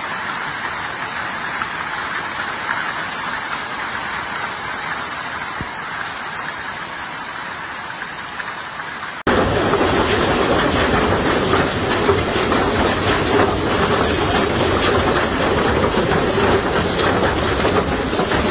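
Hailstones pelting down with rain, a dense steady hiss of stones striking the ground and surfaces. About nine seconds in it jumps abruptly louder, with a thick rattle of individual hits.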